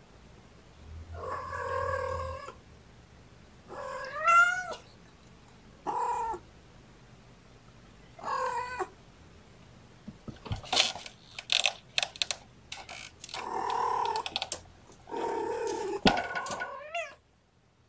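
Adult mother cat meowing to her kittens, about six separate calls, some sliding up or down in pitch. A run of sharp clicks and rattles comes in the middle.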